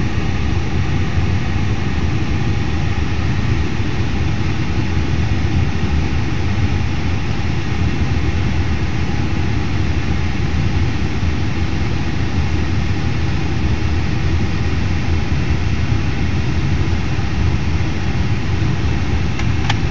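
Steady, unchanging low rumble of a vehicle engine.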